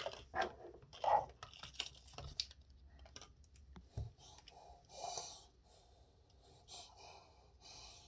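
Plastic blister packaging and a toothbrush brush head being handled: a quick run of clicks and crinkles in the first couple of seconds, then a few soft breaths.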